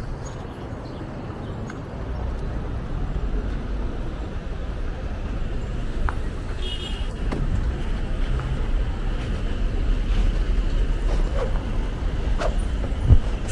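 City street traffic: a steady rumble of passing cars and other vehicles that grows somewhat louder, with a brief high squeak about seven seconds in and a short knock near the end.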